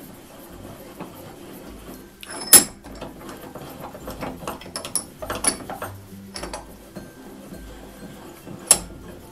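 A 3-inch Craftsman Junior bench vise being worked open and closed on its repaired Acme screw: quiet metal rubbing and turning, broken by sharp metal clacks, the loudest about two and a half seconds in, with two more strong ones later.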